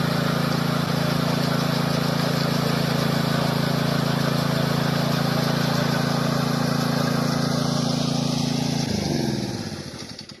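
Small gasoline engine running steadily at constant speed, then switched off about nine seconds in, its pitch falling as it spins down to a stop.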